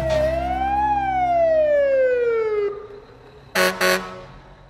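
Fire truck siren sound effect over a low steady hum: one wail rises, then falls slowly and cuts off. About a second later come two short horn blasts.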